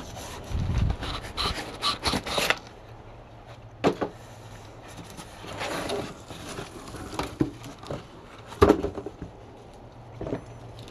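Cardboard box and cardboard packing inserts rubbing and scraping as a boxed sump pump is unpacked by hand, with a few sharp knocks.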